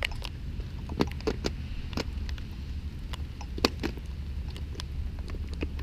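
Steady low rumble of wind on the microphone in the rain, with about a dozen irregular sharp ticks scattered through it.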